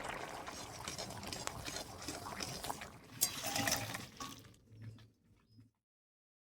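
A pan of vegetables simmering and bubbling, with a few clinks of a utensil against the pan about three seconds in. The sound fades and then cuts off to silence near the end.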